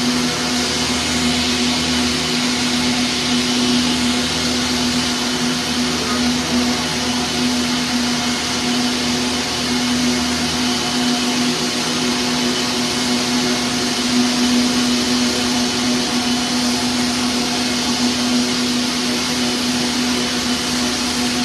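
Circular knitting machines running: a loud, steady mechanical whir with an even hum underneath.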